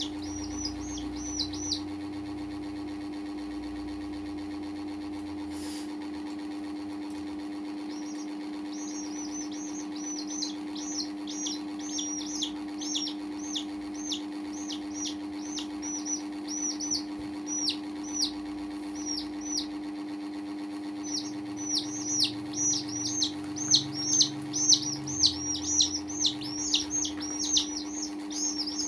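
Baby chicks peeping: short high peeps that fall in pitch, in bouts. After a first burst there is a gap of several seconds, then the peeps come steadily, and in the last third they come fast and dense. A steady low hum runs underneath.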